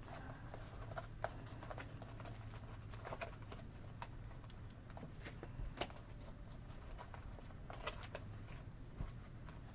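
Trading cards being flipped through and shuffled by hand: faint, irregular light clicks and snaps over a low steady hum.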